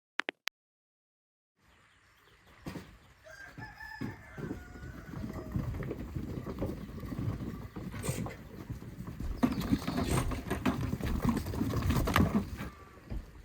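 A rooster crows once a few seconds in, over outdoor village ambience. Irregular knocks and rustling of handling build up and are loudest near the end.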